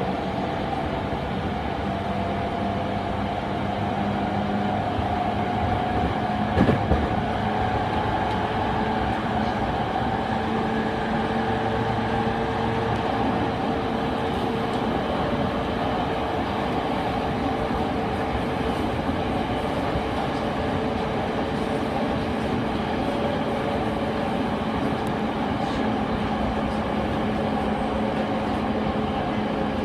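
Running noise of a Rinkai Line 70-000 series electric train with refurbished traction equipment, heard from inside the car: a steady rumble of wheels on rail with an even whine from the traction motors. A single loud knock comes about seven seconds in.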